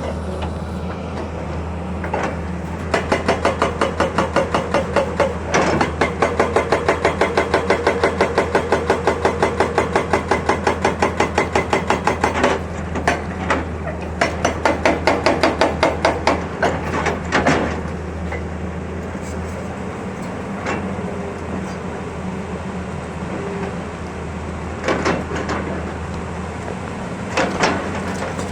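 Excavator-mounted hydraulic breaker hammering rock at about four blows a second, in long runs and then shorter bursts, over the steady running of the excavator's diesel engine.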